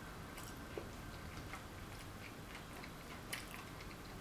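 Quiet eating sounds: a fork clicking and scraping on a paper plate, with soft chewing between a few sharp clicks, the clearest about three seconds in.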